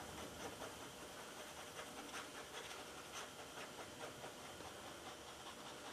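Two-part quick-set epoxy being stirred on cardboard with a thin tool: faint, irregular scraping and ticking strokes over a low hiss.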